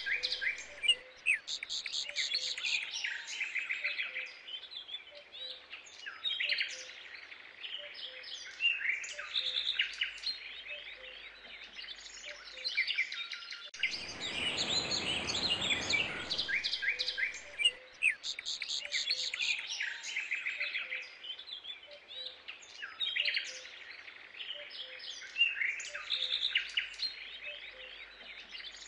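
Songbirds chirping and trilling in a looped recording that repeats about every sixteen seconds, with a short rush of hiss about halfway through.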